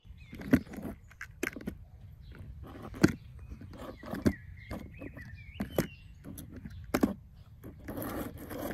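A plastic toy tractor knocked and set down on a cardboard box about half a dozen times, with a short scraping rattle near the end as it is pushed across the cardboard. Birds chirp in the background.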